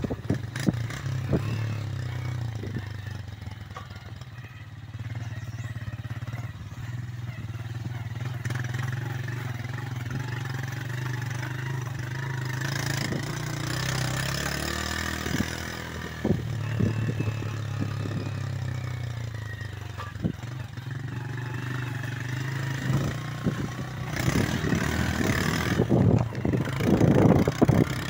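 Small motorcycle engine running at low speed on a rough dirt track, its note rising and dipping briefly about halfway through. Knocks and rattles come through near the start and again near the end.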